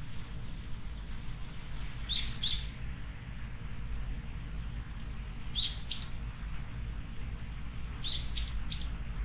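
A small wild bird giving short, high chirps in twos and threes, a few seconds apart, over a steady low background noise.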